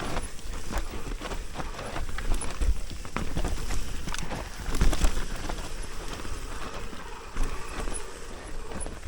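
Mountain bike riding down a dirt trail: tyres rolling over the dirt, with the bike rattling and many irregular clicks and knocks from bumps, over a steady low rumble.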